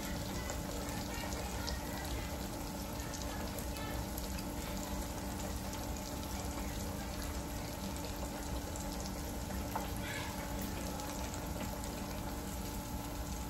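Fish-fry-breaded pork chops deep-frying in hot oil in an electric deep fryer: a steady bubbling sizzle with fine crackling.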